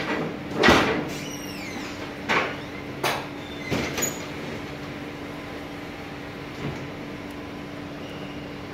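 Workshop noise: about six sudden clanks and knocks in the first four seconds, one followed by a brief falling squeak. Under them a steady low hum runs on.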